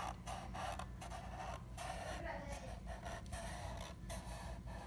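Sharpie marker tip scratching across paper in short repeated strokes as small curves are drawn.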